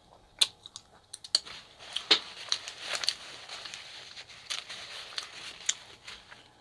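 Close-miked chewing of a mouthful of chicken gyro: a run of sharp wet mouth clicks and smacks, thickest between about two and three and a half seconds in, mixed with a paper napkin crinkling in the hand.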